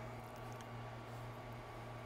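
Steady, faint background hum with a low even hiss: room tone, with no distinct event.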